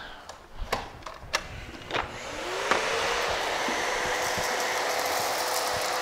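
A few clicks and knocks, then a plug-in Miele canister vacuum cleaner switched on about two seconds in. Its motor whine rises and settles into a steady run as it sucks through a straight-suction floor tool with no spinning brush.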